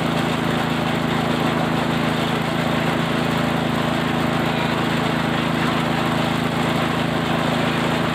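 Cattle-feed chopper machine running steadily, an even, unchanging motor hum with a rushing noise over it.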